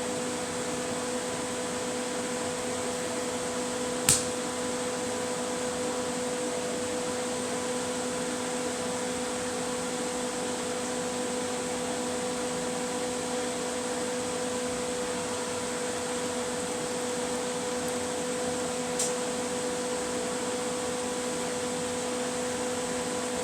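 Steady mechanical hum with a hiss, like a fan running, holding a constant pitch. A sharp click about four seconds in and a fainter one near the end.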